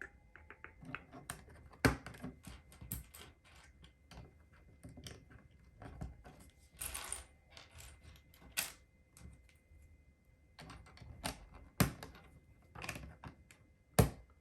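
Plastic LEGO pieces clicking and rattling as they are handled and pressed together, with a few sharp louder snaps and a brief rustle of pieces being sorted.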